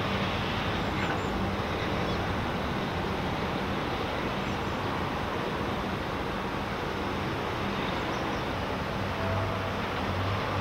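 Steady ambient noise of a ship repair yard: a broad, even rush with a low machinery hum underneath.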